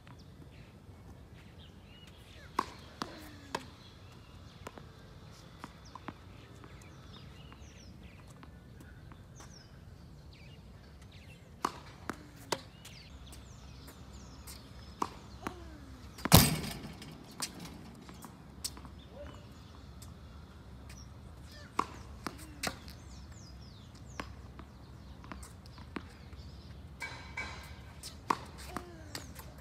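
Tennis rally on a hard court: sharp pops of the ball off racket strings and off the court surface, coming in clusters of two or three about half a second apart, with one much louder hit about halfway through.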